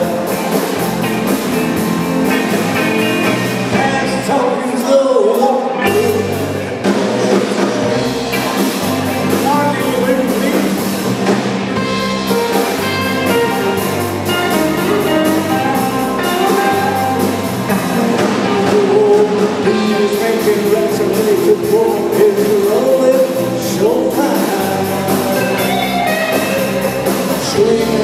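Live rock-and-roll band playing: electric guitars and a drum kit with a lead singer, heard through the PA in a large hall.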